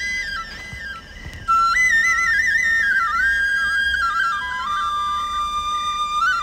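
Background music: a single high melody line moving in steps between held notes, with a short quieter stretch about a second in.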